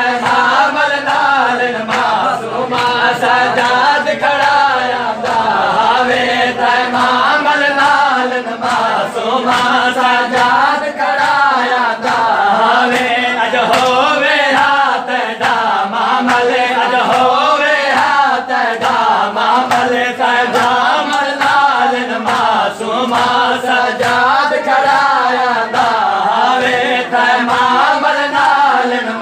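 A group of men chanting a Punjabi noha, a Shia mourning lament, in unison, with regular sharp slaps of hands on bare chests (matam) keeping a steady beat.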